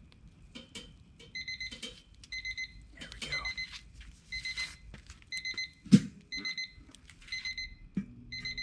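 Electronic beeping about once a second, each beep a short high chirp of a few stacked tones, typical of a wireless remote-probe meat thermometer. Handling knocks on the Weber kettle grill come with it, and there is a heavier thump about six seconds in.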